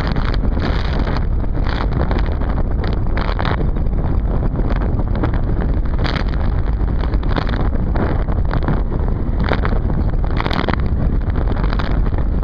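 Wind buffeting the microphone of a video camera taped to a flying RC plane: a steady loud rush heaviest in the low end, with stronger gusts coming and going every second or so.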